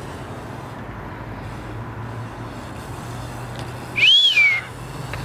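A single loud whistled note about four seconds in, rising and then falling in pitch over about half a second, over a steady low hum and outdoor background noise.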